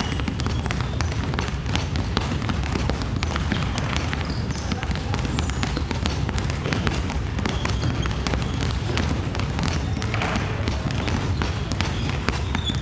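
Several basketballs being dribbled at once on a wooden gym floor: a dense, irregular run of overlapping bounces that goes on without a break.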